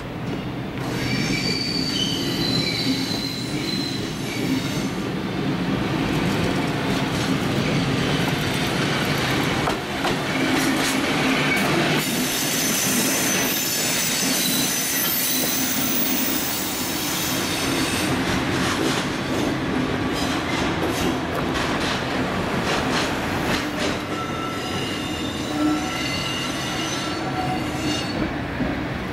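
Freight train of flat wagons carrying armoured vehicles, hauled by a red ED76 electric locomotive, rolling past close by. Steel wheels squeal in high, wavering tones over a steady rumble, with clicks from the wheels crossing rail joints; the squeal is strongest near the start and again near the end.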